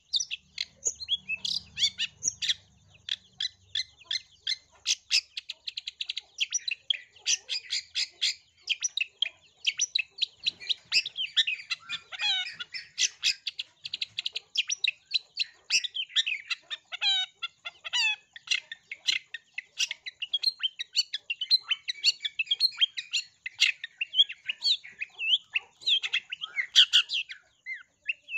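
Long-tailed shrike singing a continuous, rapid stream of short chirps, trills and chattering notes. The song is full of mimicked calls, including fast sparrow-like chatter.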